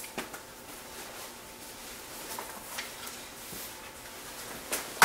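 A few faint, scattered clicks and taps, like small objects being handled, over a low steady background hiss.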